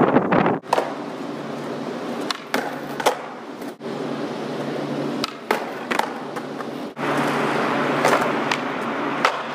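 Skateboard wheels rolling on concrete, a steady rumble broken by about a dozen sharp clacks as the tail pops and the board lands. The rolling sound cuts off and restarts abruptly a few times.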